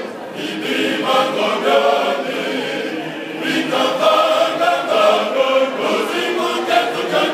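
Male choir singing together, many men's voices at once.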